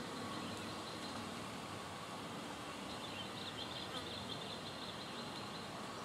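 Steady outdoor background hiss and low rumble, with faint high-pitched bird chattering from about three seconds in.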